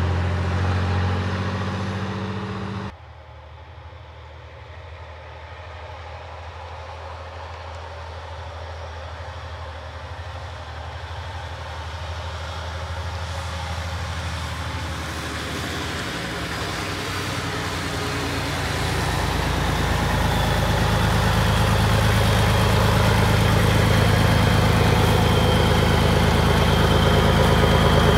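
Scania 112H truck's 11-litre six-cylinder diesel running. The sound drops abruptly about three seconds in, then grows steadily louder as the truck with its trailer approaches and drives past close by, with a high whine over the engine near the end.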